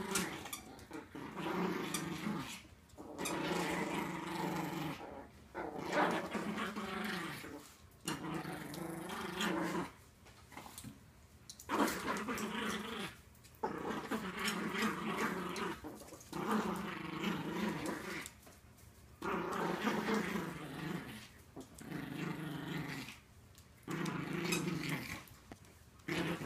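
Yorkshire terriers growling in play as they fight over a toy, in repeated bouts of one to two seconds with short breaks between.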